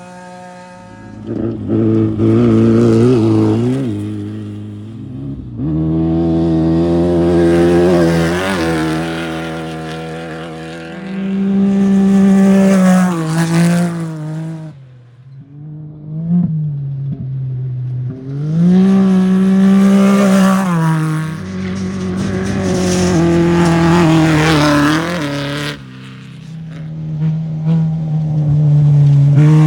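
Off-road race vehicles passing one after another, about six in turn, each engine revving up loud and then falling away.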